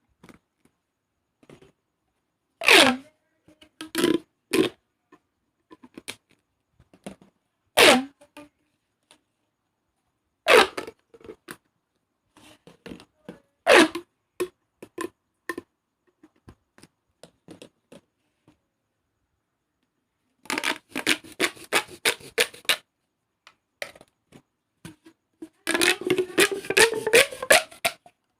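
Plastic pop tubes (corrugated fidget tubes) being stretched and squashed, their ribs snapping open and shut with crunchy pops. At first come single pops and short stretches, some with a falling pitch. Later there are two runs of rapid crackling clicks.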